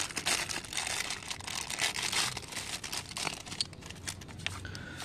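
Clear plastic packaging and bubble wrap crinkling in the hands as new brake pads are unwrapped. The crinkling is busiest for the first three seconds and thins out after that.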